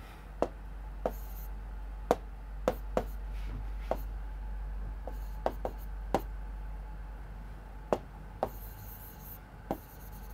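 Writing while drawing a diagram: irregular sharp taps of the pen on the writing surface, roughly one or two a second, with a few faint scratchy strokes, over a steady low hum.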